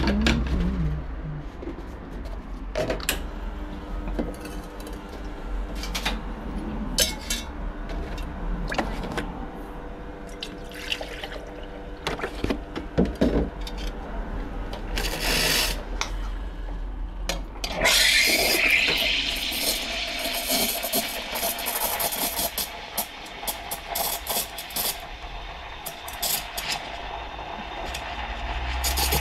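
Wega Pegaso espresso machine running during a shot, with a steady hum and the clink of metal parts; a short blast of steam comes about fifteen seconds in. From about eighteen seconds the steam wand is steaming milk in a stainless jug for a cappuccino: a loud hiss whose pitch rises and then settles into a steady screech.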